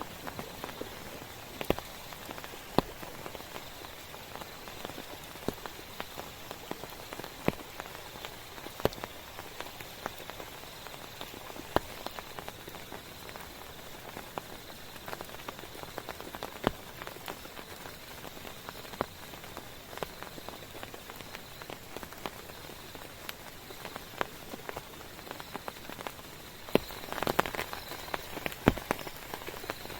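Steady rain falling, with frequent sharp, irregular drop impacts on a nearby surface; it grows a little heavier near the end.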